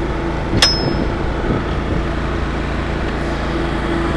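Zero-turn lawnmower engine running steadily as the mower drives over rough grass, with a single sharp metallic clank about half a second in.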